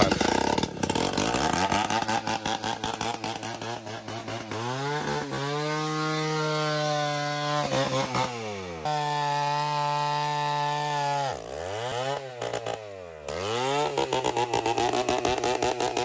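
A two-stroke chainsaw cuts through a felled tree trunk. The engine labours unevenly at first, then holds a steady high rev for several seconds. Around two-thirds through it drops toward idle twice and revs back up, then runs rough under load again.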